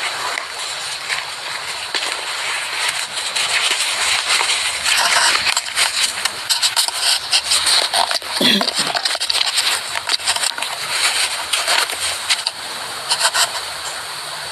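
Steady hiss with many crackles, and faint, unclear voice sounds in it. About eight and a half seconds in comes a brief low sound that bends in pitch.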